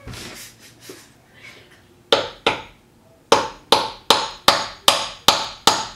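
Wood chisel struck with a hammer, cutting the shallow mortise for a deadbolt faceplate into a door edge: after a couple of seconds of soft handling noise come two sharp blows, then a steady run of blows about two and a half a second.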